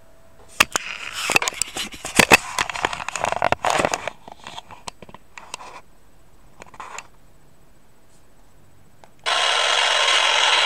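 Clicks and scrapes of the camera and meter being handled, then about nine seconds in an EMFields Acousticom 2 RF detector's speaker switches on with a steady loud rushing hiss-buzz. The meter is sounding a strong radio-frequency reading, which the owner takes for a beam aimed at her forehead.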